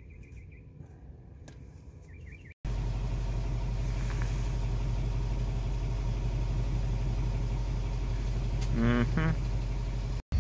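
A couple of seconds of quiet, then a sudden cut to a steady low engine hum, as of a vehicle idling close by. A few words are spoken over it near the end.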